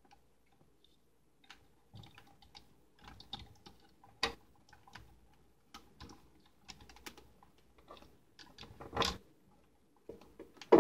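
Small hard-plastic clicks and knocks as a Transformers Grimlock figure's arm and hand-held weapon are handled and fitted together: a scattered run of light clicks, with sharper knocks about four seconds in and again about nine seconds in.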